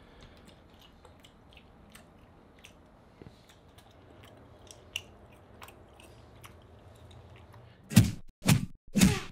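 Faint chewing of beef jerky, with small scattered mouth clicks. Near the end come three loud, sudden hits about half a second apart.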